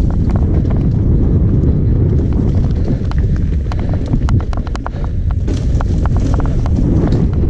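Mountain bike riding fast down a dirt trail: a steady wind rumble on the camera microphone and tyre noise over the dirt, with irregular clicks and knocks as the bike rattles over bumps.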